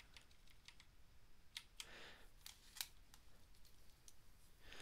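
Near silence broken by faint, irregular clicks and taps from working at a computer, with a few sharper ones around two to three seconds in.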